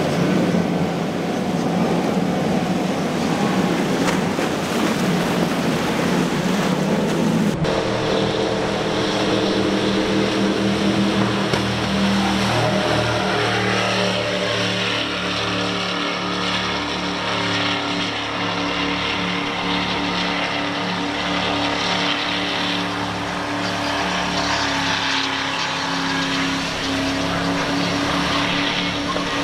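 Powerboats running past at high speed through choppy water. First comes a center-console with four Mercury 350 outboards, heard mostly as a rough rush of engine, spray and wind. After a sudden cut about seven seconds in, a go-fast performance boat's engines run at speed as a steady multi-tone drone that shifts in pitch, mixed with the hiss of its wake.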